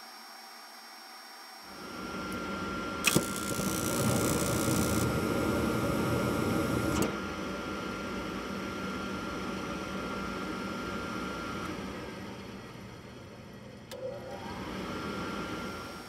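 Gas furnace package unit trying to fire: a motor starts running, then about three seconds in the burners light with a sharp pop and a rush of flame lasting about four seconds before the gas cuts off suddenly, the motor running on, with a click near the end. The burners going out after a few seconds is the sign that the control is not proving flame, as with a dirty flame rod or a bad ground.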